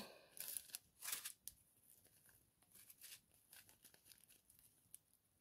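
Faint crinkling of small plastic zip-lock bags of diamond painting drills being handled, a few brief rustles in the first second and a half.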